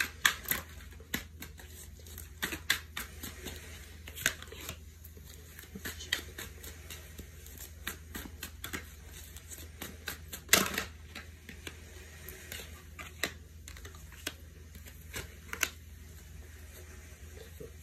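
Tarot cards being dealt face down onto a cloth-covered table: irregular light taps and slaps of card stock, with the sharpest one about ten seconds in. A steady faint low hum runs underneath.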